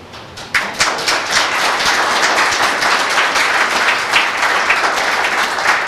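Audience applauding. The clapping breaks out about half a second in and then continues as a dense, steady patter.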